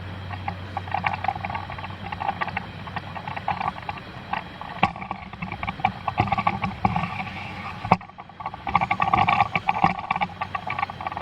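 Carpentry shop activity: a dense run of irregular clicks, knocks and clatter, with a few sharper strikes.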